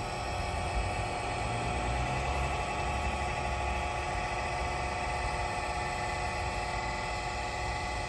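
Matsumoto Kikai RD-5-INW welding turning rolls running with a steady motor-and-gear whir and hum, the roll speed just turned up.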